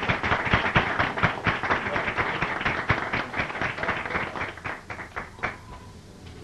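Audience applauding, many hands clapping at once; the clapping thins out and dies away about five and a half seconds in.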